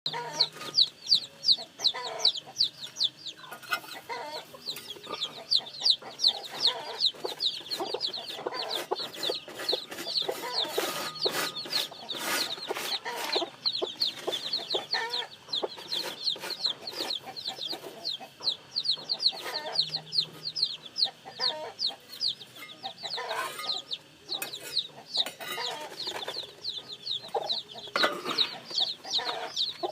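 A brood of newly hatched chicks peeping without pause, a dense run of short, high, falling chirps, with lower chicken clucking mixed in.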